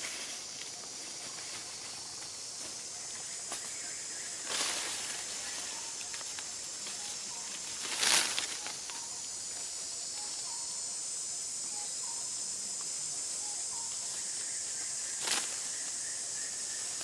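Steady high-pitched insect drone in the forest, with three short bursts of noise over it, the loudest about eight seconds in.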